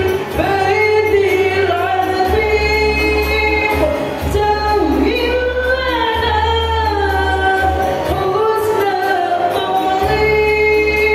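A women's choir singing in parts, their voices holding long notes and gliding between pitches, with low bass notes sounding under them at times.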